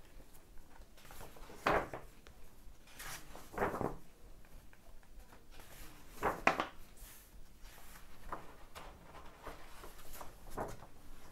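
Pages of an old paper magazine being turned and handled, a string of short paper swishes and rustles every couple of seconds, the loudest about six and a half seconds in.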